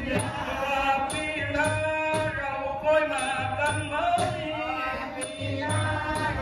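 A man chanting southern Thai verse (khap klon) in the nang talung narrator's style, his sung voice bending and holding notes, over a Nora ensemble: low drum strokes and small cymbals ticking a steady beat.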